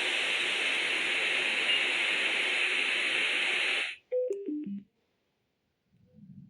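Bluetooth speaker in FM radio mode giving out steady static hiss, which cuts off abruptly about four seconds in. A quick run of four beeps stepping down in pitch follows.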